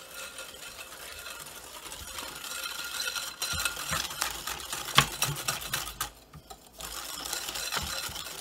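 A wire whisk beats eggs and sugar in a glass mixing bowl, its wires clicking rapidly against the glass, as the sugar is beaten in to dissolve. There is one sharper clink about five seconds in, and a brief pause just after it.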